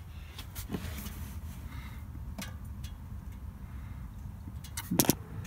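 Handling noise: a few light clicks, then one sharp knock about five seconds in, over a low steady rumble.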